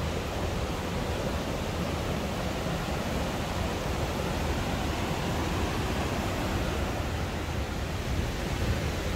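Steady rush of river water: the Rednitz running fast and white.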